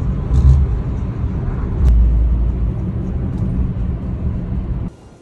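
Low, steady rumble of a moving vehicle, dropping away just before the end.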